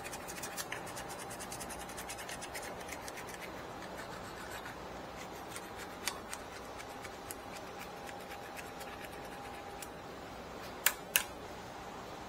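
Faint scratching and rubbing over a low steady hum, with fine rapid ticking in the first few seconds and two sharp clicks close together near the end.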